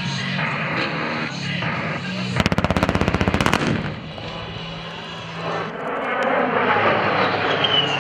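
A rapid rattle of simulated cannon fire, about a dozen bangs a second for just over a second, for an A-10 Thunderbolt II's simulated strafing pass, with music playing underneath. Then the A-10's twin General Electric TF34 turbofan engines swell in as it passes, with a falling whine near the end.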